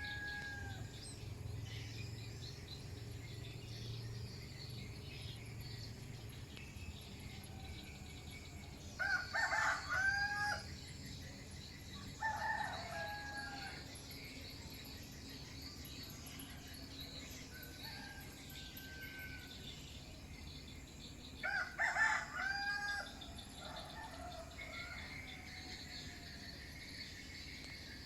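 Rooster crowing again and again. The two loudest crows come about nine and twenty-two seconds in, with fainter crows in between.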